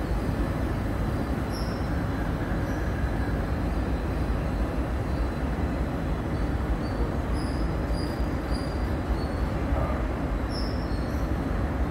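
Indian Railways passenger coaches rolling past along a platform with a steady low rumble, and short high-pitched wheel squeals coming again and again.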